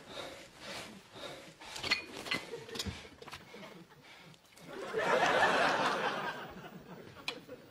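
Studio audience laughing, with a big swell of laughter about five seconds in, over small clinks of china teacups and a metal teapot being handled.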